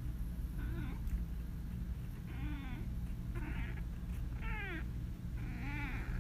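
Ginger tabby cat giving about five short, soft meows, each rising and falling in pitch, roughly a second apart.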